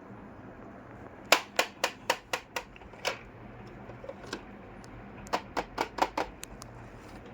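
Sharp clicks and taps of small hard plastic toy kitchen pieces being handled. There is a quick run of about six clicks, a few single ones, then another run of about five and two lighter ticks near the end.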